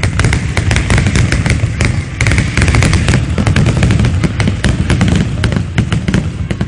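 Fireworks finale: a rapid, unbroken barrage of aerial shell booms and crackling bursts, many overlapping.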